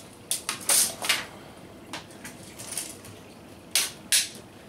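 Brief rustles and scrapes of a tape measure and a USB cable being handled and pulled taut against each other. Several come close together about half a second to a second in, with two sharper ones near the end.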